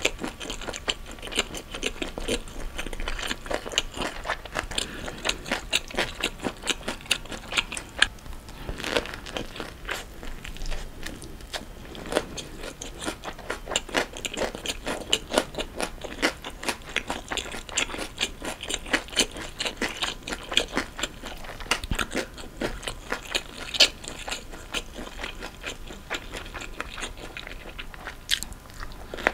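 Close-miked chewing of a Vietnamese rice-paper spring roll filled with shrimp, egg, chopped vegetables and meat: steady wet chewing with many quick crunchy clicks, several a second.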